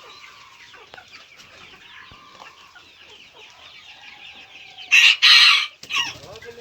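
Chickens on a poultry farm: a dense chorus of chicks peeping with hens clucking. About five seconds in there is one loud, harsh burst lasting under a second.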